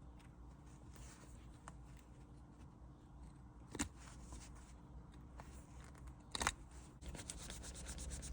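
Hard plastic on a gear shift lever being cut away by hand: faint scraping, two sharp snaps about four and six and a half seconds in, then rapid scraping strokes from about seven seconds in.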